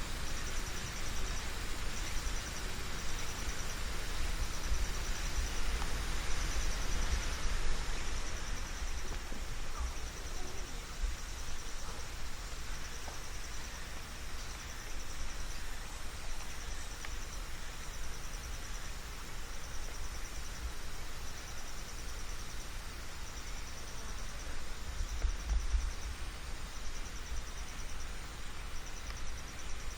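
Insect trilling in short high-pitched bursts about once a second, over a steady low rumble.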